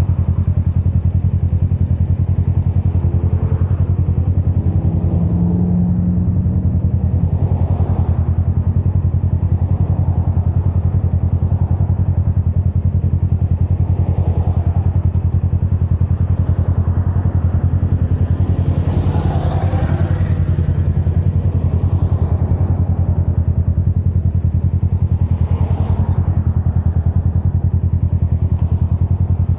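Motorcycle engine idling steadily at a standstill. Other vehicles pass every few seconds, one louder pass about twenty seconds in.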